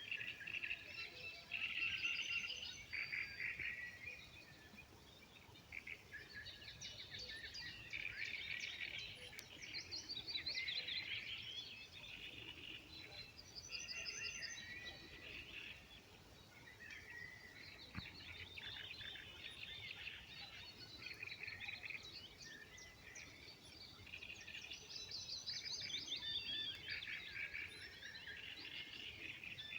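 Songbirds singing, several birds' chirps and trills overlapping in a continuous chorus in phrases of a few seconds, over a faint background hiss.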